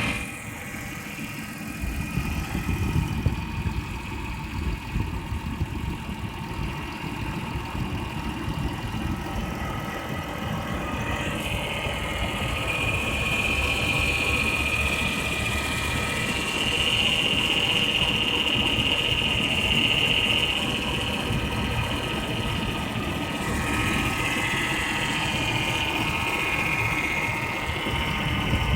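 2000 Ford Taurus 3.0 L 24-valve V6 running at idle, with a weird noise that the owner places behind the passenger-side dash: a click or knock of the kind typical of a blend door actuator. A steady hiss comes in about eleven seconds in.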